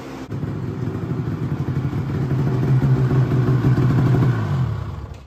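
Arctic Cat M800 snowmobile's 800cc two-stroke twin running through an aftermarket exhaust can. It runs steadily and grows louder, then dies away near the end.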